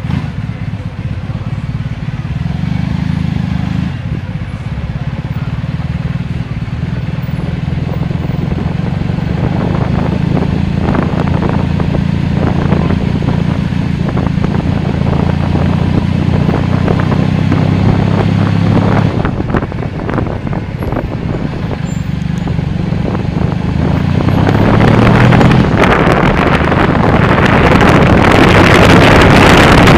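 Car engine drone and road noise heard from inside a moving car, a steady low hum. Near the end it grows louder, with a broad rush of wind and tyre noise over it.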